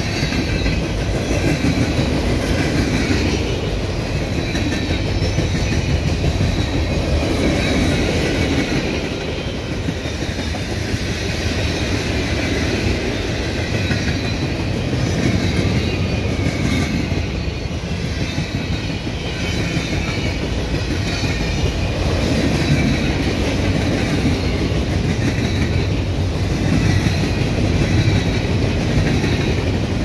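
Freight cars of a passing CSX manifest train rolling by close at speed: a steady rumble of steel wheels on the rail, with wind on the microphone.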